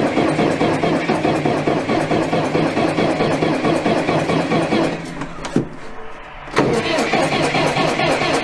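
Starter cranking the cold engine of an old forklift that has sat unused for about a year. The cranking stops about five seconds in and starts again abruptly about a second and a half later.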